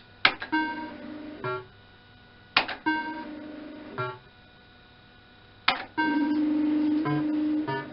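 Electrocoin Super Bar-X fruit machine (MAB program) making its electronic sound effects: three sharp clicks, each followed by a short plucked-sounding electronic jingle, then a steady electronic tone while the reels spin near the end.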